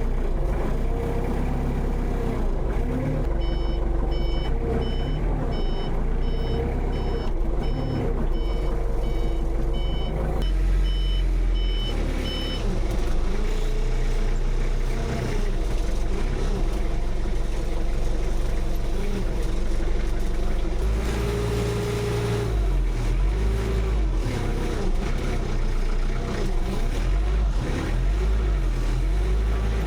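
A vehicle's reversing alarm beeping evenly, a little under two beeps a second, starting a few seconds in and stopping about halfway, over an engine that runs throughout with its revs rising and falling.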